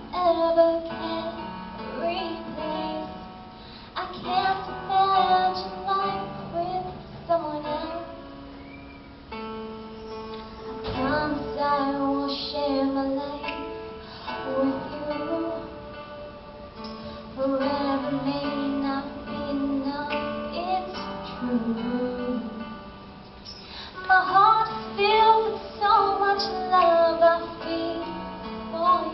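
A woman singing a slow song into a handheld microphone over instrumental accompaniment, in sung phrases with short breaks between them.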